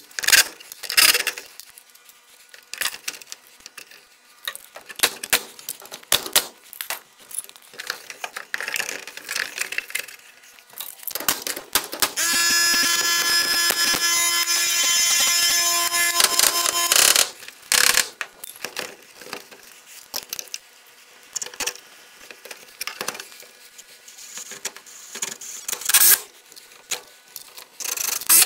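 Clatter and sharp knocks of tools on the metal breaker panel and wood framing, with a power tool's motor running steadily for about five seconds near the middle.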